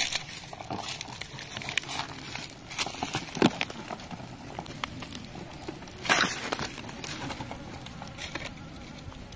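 Dry palm fibre and leaf litter rustling and crackling as a plastic container of beetles is handled and tipped against a rotting palm stump. Scattered clicks run through it, with a louder scrape about six seconds in, over a faint steady high hiss.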